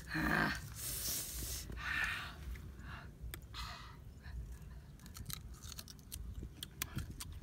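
Close-up eating sounds of someone biting and chewing crunchy sour fruit with chili salt. A loud bite at the start and a few noisy crunches over the next few seconds give way to sharp, wet chewing clicks in the second half.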